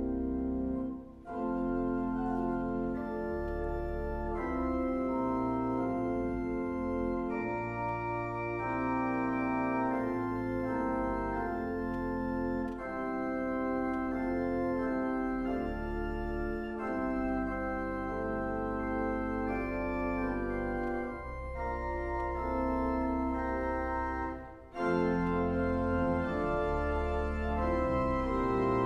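Organ music: slow, held chords over a low bass line, pausing briefly about a second in and again near the end.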